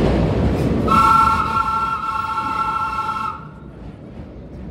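Vintage R1-9 subway train running into a station: wheel-and-rail rumble, then a steady, high-pitched sound of several tones together lasting about two and a half seconds, after which the rumble drops away as the train slows.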